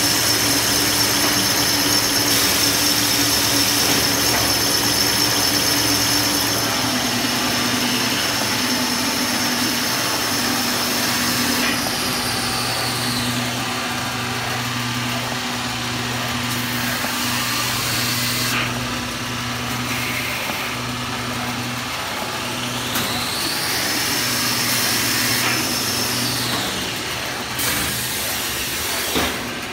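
Toilet paper rewinding machine and automatic bandsaw log cutter running: a steady motor hum with a high whine that fades out about halfway and swells back for a few seconds near the end.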